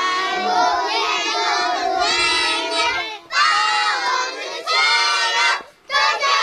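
A group of young children singing together without accompaniment, in long held phrases broken by two short pauses, about three seconds in and near the end.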